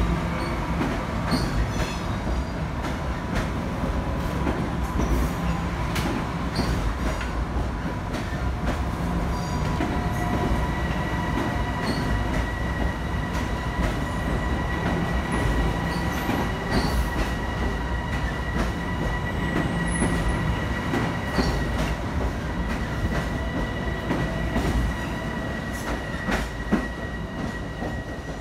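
Bombardier M7 electric commuter train rolling past along the platform: a steady rumble with scattered clicks of wheels over the rails and a steady high whine, joined by a second, higher whine about a third of the way through. The sound eases near the end as the train leaves.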